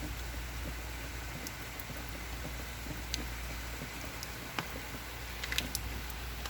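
Heavy rain falling in a steady hiss, with scattered sharp taps of drops striking nearby surfaces, a few of them close together a little past the middle.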